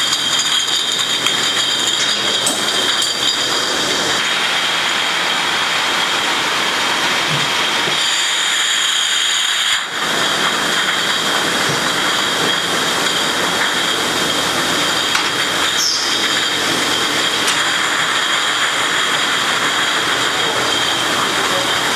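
Glass bottle factory conveyor lines running: a loud, steady machinery din with constant high whining tones, and glass beer bottles clinking and rattling against one another as they are carried along.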